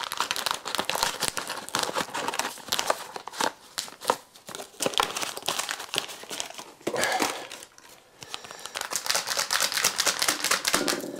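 A sachet of egg white powder crinkling and rustling as it is handled and opened, in irregular spells with short pauses.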